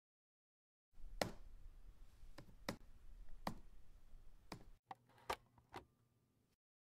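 Sharp single clicks of a laptop being used, about seven of them at an irregular pace of roughly one a second, over a faint hum. The sound starts about a second in and cuts off suddenly well before the end.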